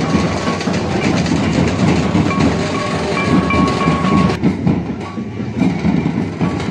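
A band of large metal barrel drums beaten together in a fast, driving rhythm, with a thin high steady tone sounding on and off above the drums. About four seconds in, the sound changes abruptly while the drumming goes on.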